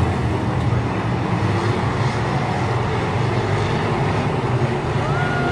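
Dirt-track race car engines running in a steady, loud drone.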